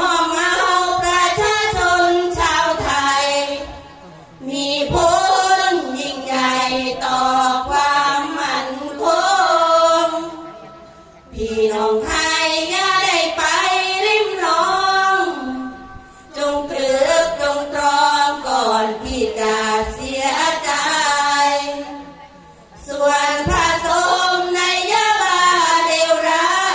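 A women's sarabhanya troupe singing in unison, with no instruments, a chanted Buddhist-style verse melody in long phrases separated by short pauses for breath.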